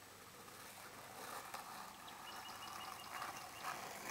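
Quiet outdoor street ambience, with a faint high, rapidly pulsing trill lasting about a second and a half in the middle.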